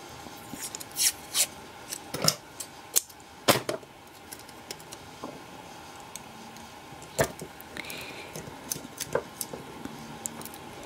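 Amber insulating tape being pulled off its roll and pressed around a pack of 18650 cells: a run of short sharp rips and crackles in the first few seconds, then scattered handling clicks, with one sharp click about seven seconds in. Underneath is a steady hiss of hard rain on the garage roof.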